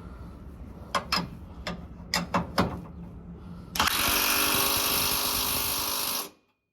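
A few sharp metallic clicks, then a power tool runs steadily for about two and a half seconds and stops suddenly, running down a nut on the truck's leaf spring hardware.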